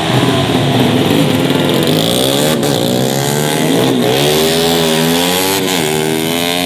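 Several tuned 150 cc four-stroke underbone racing motorcycles running hard together, their engine notes overlapping and repeatedly climbing and dropping in pitch as they shift and go past.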